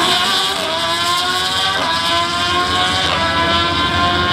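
Snowmobile-powered mini funny car's engine at full throttle on a drag run, climbing in pitch and dropping back sharply three times as it shifts up.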